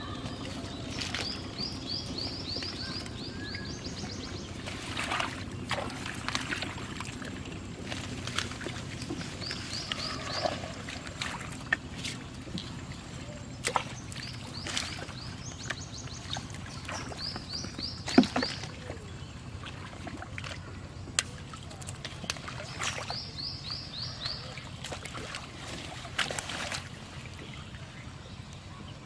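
Water sloshing and splashing with scattered sharp knocks. A bird repeats a quick run of high notes every few seconds.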